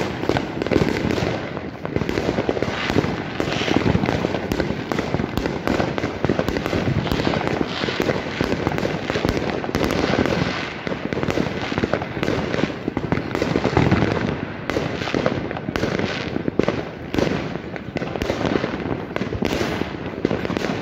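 Many fireworks and firecrackers going off together in a dense, unbroken barrage of bangs and crackles.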